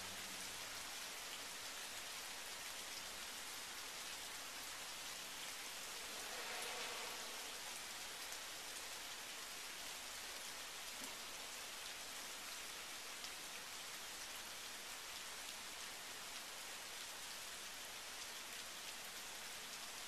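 Steady rain falling on pavement and shrubs: an even hiss with a few faint drips, swelling briefly about seven seconds in.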